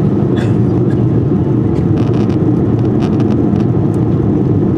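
Airliner cabin noise in flight: a steady low roar of the jet engines and rushing air, heard inside the passenger cabin.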